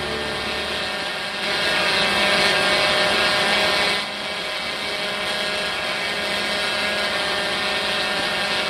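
Multirotor drone's motors and propellers whining steadily, a dense buzz of many close tones. It grows louder about a second and a half in and drops back near the middle.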